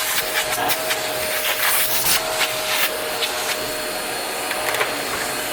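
Vacuum cleaner running steadily with a high motor hum and a loud rushing hiss, its bare hose sucking dust and fluff off a sewing machine, with scattered ticks throughout.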